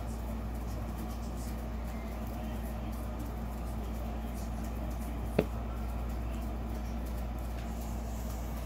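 A steady low background hum, with one sharp click about five seconds in.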